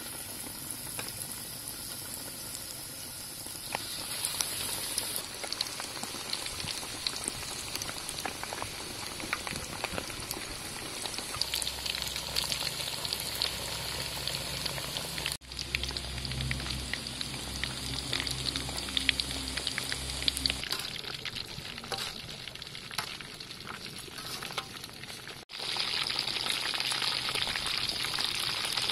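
Breadcrumb-coated chicken drumsticks deep-frying in hot oil in a steel wok: a steady sizzle full of fine crackles. It breaks off for an instant twice.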